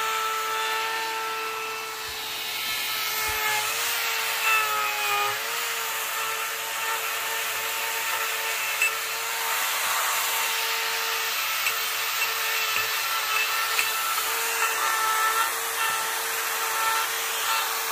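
Power carving tool running at a steady high pitch as it works wood, its pitch dipping briefly about four seconds in as it is pressed into the cut.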